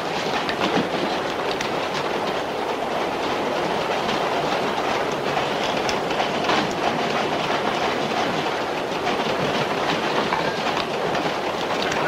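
Subway train running along the track, heard from inside the car: a steady rolling rumble with the clickety-clack of wheels over rail joints.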